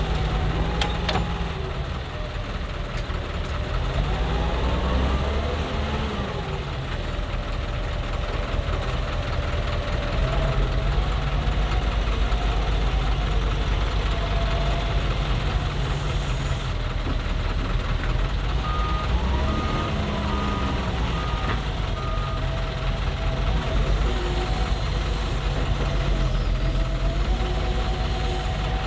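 Heavy diesel engines of an excavator and dump truck running steadily, with the engine speed rising and falling twice. About two-thirds of the way in comes a short series of about six reversing-alarm beeps.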